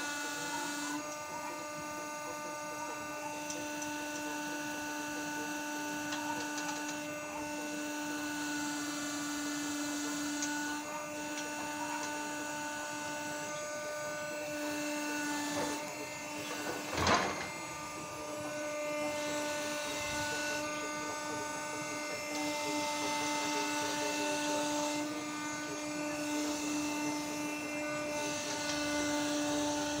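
Hydraulic drive of a home-built firewood processor running steadily with a constant whine. About halfway through, a brief louder surge rises and falls.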